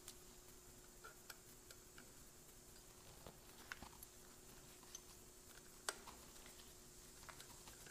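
Faint, scattered small metal clicks as the clutch springs and spring nuts are threaded by hand onto the pressure-plate studs of a Ducati dry clutch. The sharpest click comes about six seconds in.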